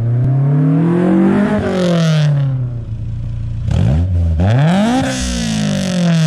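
Honda S2000's four-cylinder engine, breathing through an AEM V2 cold-air intake, revved twice. The pitch climbs for about a second and a half and falls away, then after a short blip it climbs again and falls.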